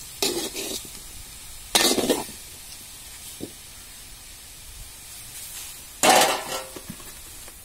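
A metal spoon stirring pieces of sweet potato in a metal kadai. There are three short scrapes against the pan, each about half a second long: one at the start, one about two seconds in and one about six seconds in. A faint steady hiss runs between them.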